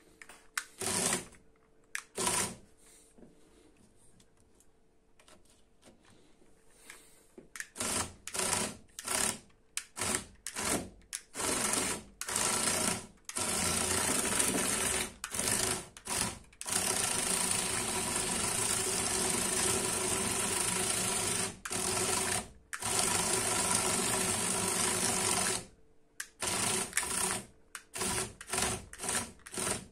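Electric drive motors and plastic gearing of a CaDA C51018 remote-controlled brick tank whirring as it drives on its tracks. The tank runs in short stop-start bursts at first, then in longer runs of several seconds, then in short bursts again near the end.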